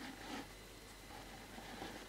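Faint rustling handling noises from working on an opened laptop, over a steady low hum.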